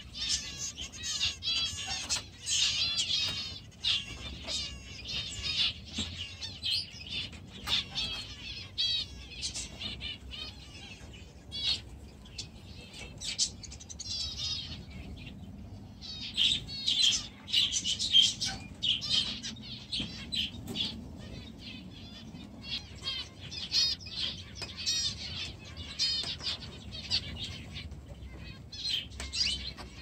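A flock of small aviary birds chirping and calling in rapid, overlapping chatter, thinning out for a few seconds near the middle, with brief wing flutters.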